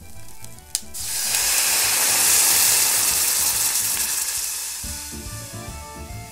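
Water poured into a hot, dry stainless steel saucepan of toasted spices and salt, hissing and sizzling into steam as it hits the hot metal. A short click comes just before; the hiss swells about a second in and dies down over a few seconds. Background music plays underneath.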